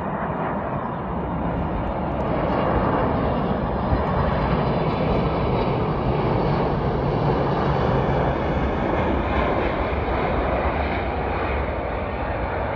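Jet airliner's engines heard as it lands. The noise swells as the plane comes past and touches down, holds steady, then eases off as the aircraft rolls away down the runway.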